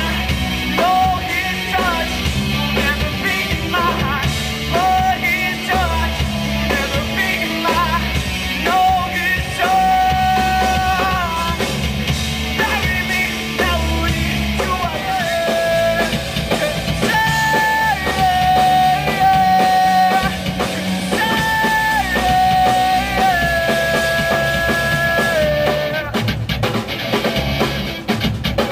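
Live rock band playing through a PA: a male singer holding long sung notes over electric guitars and a drum kit. The vocal line stops near the end while the band plays on.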